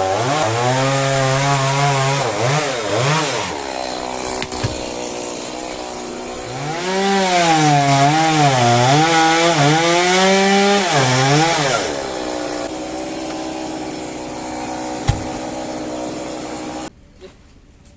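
Stihl two-stroke chainsaw cutting into coconut trunk in two loaded cuts, its engine pitch wavering as it bogs in the wood. It drops back to a steadier, quieter run between and after the cuts, then cuts off about a second before the end.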